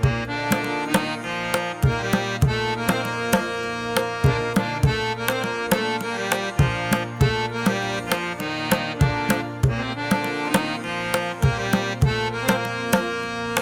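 Instrumental background music: a steady, rhythmic hand-drum beat over sustained pitched tones.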